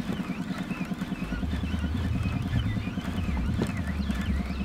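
Heavy catfish fishing reel being cranked steadily while under load from a hooked wels catfish: a fast, even rattle.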